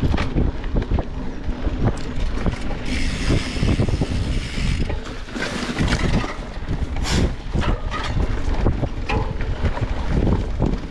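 Wind buffeting the microphone during a mountain-bike ride, under a steady low rumble with frequent short knocks and rattles from riding over rough ground. A brighter hiss rises about three seconds in and lasts a couple of seconds.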